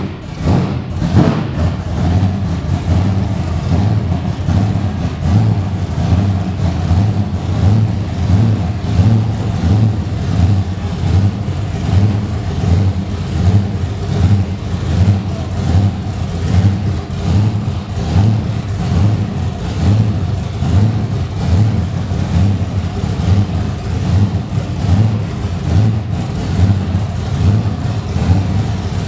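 Monster truck engine running loudly at idle with a regular, lumpy pulsing beat.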